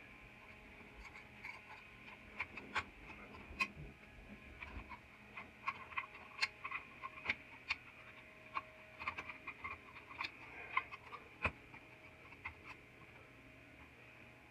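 Irregular light clicks and taps of small hard objects, many in quick succession through the middle, over a faint steady high hum.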